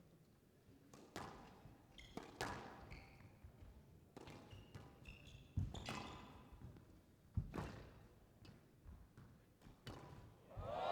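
A squash rally: the ball struck by rackets and smacking off the court walls about once a second, with short squeaks of court shoes on the floor between shots.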